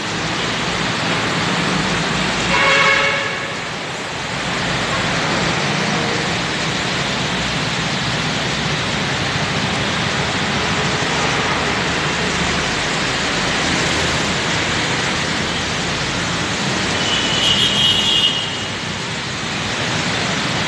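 Steady hiss of heavy rain and traffic on a wet road. A vehicle horn sounds briefly about three seconds in, and a shorter high-pitched beep comes near the end.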